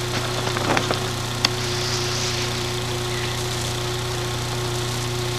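Lawn mower engine idling steadily, with a few light metallic taps about a second in and one sharp click shortly after.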